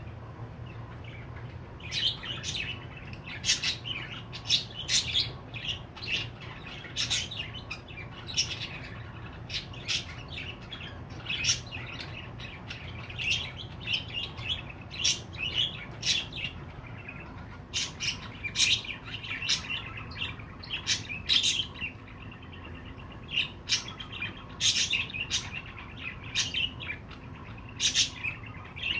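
Budgerigar chirping: a long run of short, sharp chirps in irregular quick bursts, starting about two seconds in. A low steady hum sits underneath at first and fades out after several seconds.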